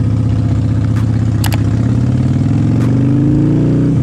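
Harley-Davidson Dyna's V-twin engine running low, then accelerating from about two seconds in, its pitch rising steadily. A couple of sharp clicks about a second and a half in.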